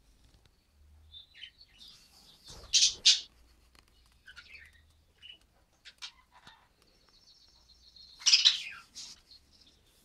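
Budgerigars chirping in a flock: scattered short high chirps, two loud sharp calls about three seconds in, and a thin rapid trill that runs into another loud burst of calls near the end.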